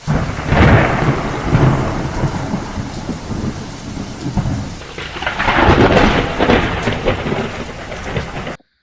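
Rumbling thunder over rain, swelling twice and cutting off abruptly near the end, as in an edited-in sound effect.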